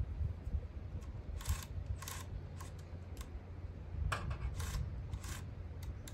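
Handling noise as the new chainsaw and its parts are worked over by hand: about six short scraping rasps and clicks spread over a few seconds, over a low steady background rumble.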